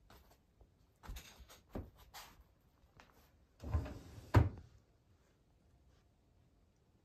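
Household handling noises: a few knocks and clunks, then a second of rustling or scraping that ends in a sharp knock, like a cupboard or door closing.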